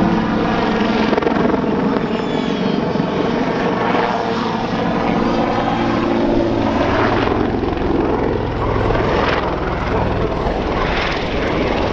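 Westland Lynx helicopter's main rotor and twin Rolls-Royce Gem turboshaft engines, running continuously as it rolls and manoeuvres in flight.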